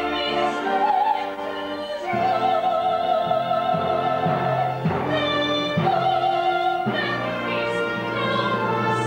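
A woman singing in a soprano, operatic style over orchestral accompaniment, holding long notes with vibrato and moving to new notes a few times.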